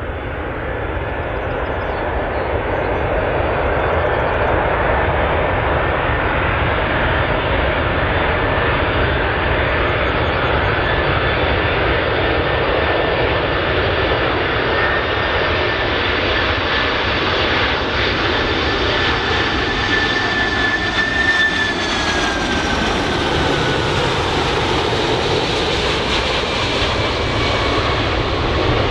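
Boeing 747-400's four jet engines on final approach: a steady, loud rushing roar that swells in over the first few seconds. A high whine runs through it and drops in pitch about three-quarters of the way through as the jet draws past.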